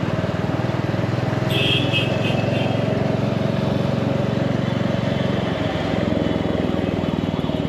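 Royal Enfield Meteor 350's single-cylinder 349 cc engine running steadily under way, with an even low pulsing. A few short high beeps come in about a second and a half in.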